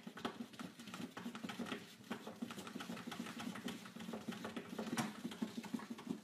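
Cat pawing repeatedly at a plastic pet-food storage bin: a rapid run of light taps, several a second.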